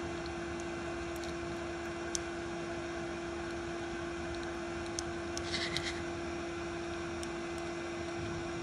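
Electric blower fan running steadily with a constant hum and hiss. A few light ticks of metal tweezers against a processor chip on a circuit board are heard, clustered about five to six seconds in.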